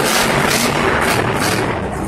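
Max-D monster truck's supercharged V8 engine running hard as the truck drives across the arena floor, with arena music playing.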